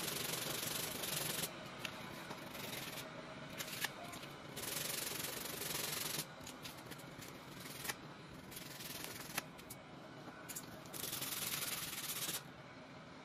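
Hand sanding with a sheet of sandpaper over glue worked into a crack in a wooden table edge: about five spells of rubbing with short pauses between, and a few small sharp clicks.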